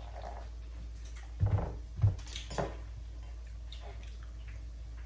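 Close-miked eating: a few bites and crunchy chewing noises clustered between one and three seconds in, over a steady low hum.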